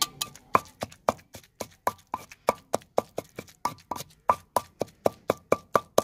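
Pestle pounding chopped guava and coriander leaves in a stone mortar: a steady run of sharp knocks, about four a second, each with a brief ring.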